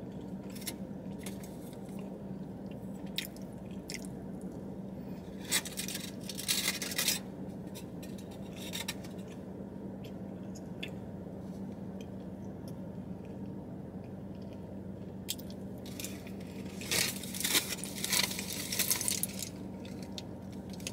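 Aluminium foil wrapper crinkling in two spells, around six seconds in and again near the end, with quiet chewing of soft bread between them. A steady low hum runs underneath in the car cabin.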